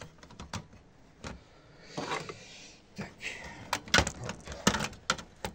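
Sheet-metal chassis and circuit boards of an LCD monitor being handled and pried with a screwdriver: scattered metallic clicks and knocks, a scraping sound about two seconds in, and two sharper knocks around four seconds in.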